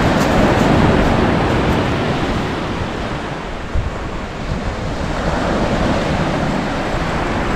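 Surf breaking and washing up a pebble beach, swelling and ebbing, with wind buffeting the microphone.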